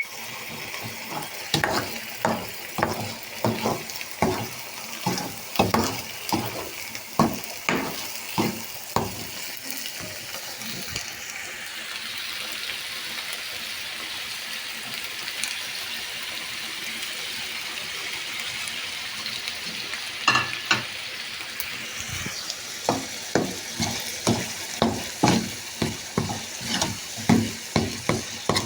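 Palak saag frying in a pan: a steady sizzle, with a utensil stirring and scraping the pan in quick repeated strokes for the first ten seconds and again near the end, and sizzling alone in between.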